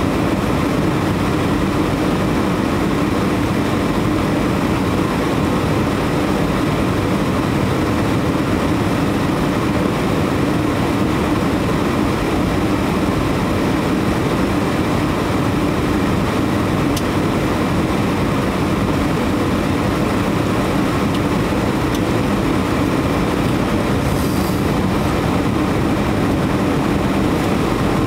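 Steady jet engine and airflow noise inside the cabin of an Airbus A320-200 descending toward landing: an even, unbroken low hum with hiss above it.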